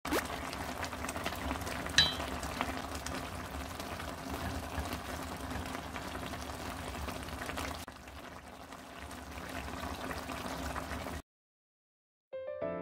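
Red chili sauce of a tofu braise bubbling and simmering in a pan, a steady crackly bubbling with small pops, and a single sharp clink about two seconds in. The bubbling cuts off near the end and soft piano music begins.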